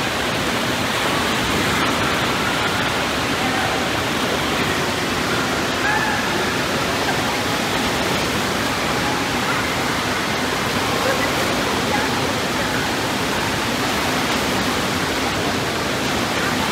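Steady rush of churning water in an indoor wave pool, with faint children's voices in the background.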